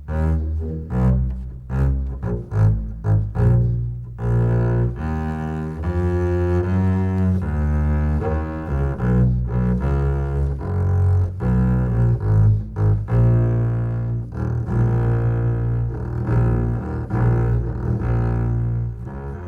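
Double bass played solo: short, detached notes for about the first four seconds, then longer held bowed notes moving from pitch to pitch.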